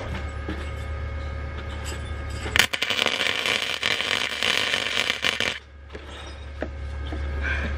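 MIG welder tack-welding a steel seat bracket: a loud crackling arc lasting about three seconds, starting a couple of seconds in and cutting off sharply. A steady low hum runs before and after it.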